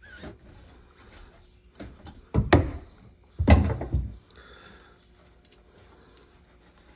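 Heavy knocks of a filter wrench working an oil filter loose in a personal watercraft's engine bay: two loud thumps about a second apart, a smaller one just before them, then faint handling.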